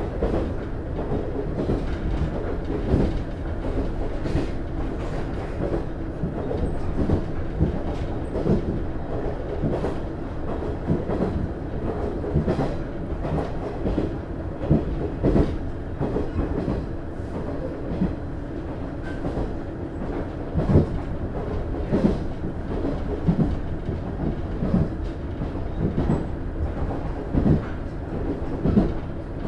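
Running sound of the KiHa 110 series diesel railcar KiHa 110-135 (DMF14HZA engine), heard from inside the car while it travels: a steady low rumble of engine and wheels on the rails. Irregular clacks come as the wheels cross rail joints.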